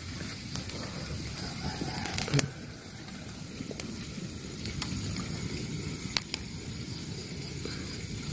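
Wood campfire burning with a steady low rush, with scattered sharp crackles and pops from the burning wood, a few of them bunched together about two seconds in.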